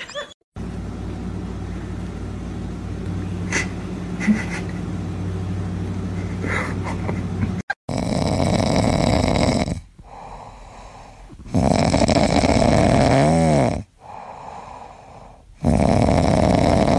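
A pet snoring: a steady low rumble, then loud snores about every four seconds.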